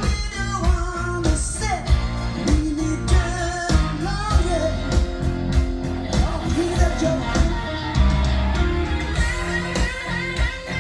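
A rock song with singing over guitar, bass and drums playing with a steady beat.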